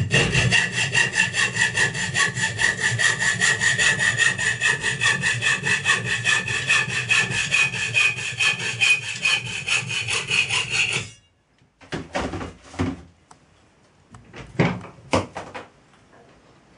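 Hand hacksaw cutting through a metal part clamped in a bench vise, with steady back-and-forth strokes that stop abruptly about eleven seconds in. A few light knocks and clicks follow.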